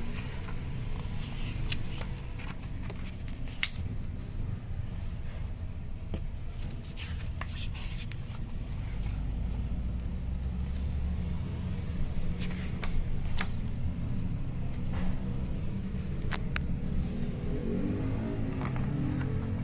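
Glossy pages of a large picture book being handled and turned, with scattered soft paper rustles and clicks over a steady low rumble.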